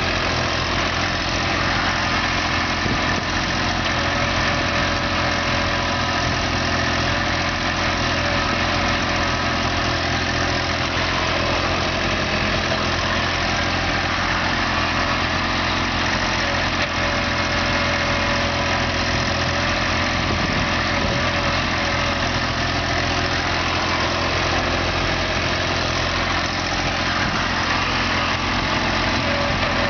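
Small excavator's diesel engine running steadily at an even pitch and level.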